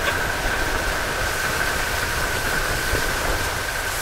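Motorboat under way: a steady engine whine over the low rumble of wind on the microphone and rushing water.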